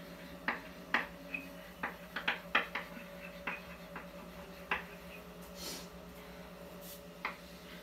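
Chalk on a chalkboard while writing: an irregular run of short taps and scratches, with a faint steady hum underneath.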